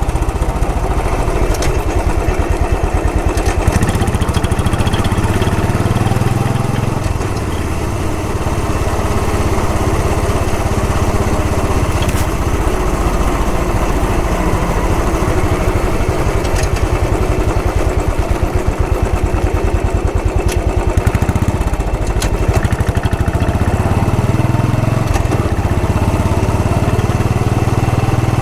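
Royal Enfield Bullet 500's single-cylinder engine running as the motorcycle is ridden, a steady, rapid thumping from the exhaust. The level dips around seven to eight seconds in and then builds again.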